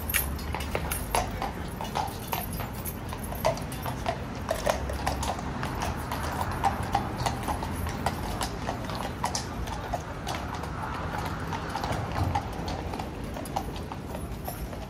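Hooves of mounted King's Guard horses clip-clopping, many irregular hoof strikes close together, over a low background rumble.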